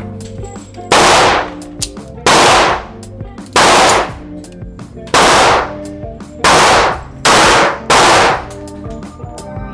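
Seven pistol shots fired one after another at an uneven pace, each sharp report followed by a short echo in the enclosed range.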